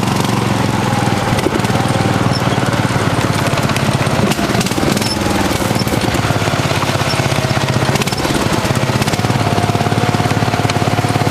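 Terra Jet all-terrain vehicle's engine running steadily under way, with a rapid even firing pulse and a higher whine that drifts slightly in pitch.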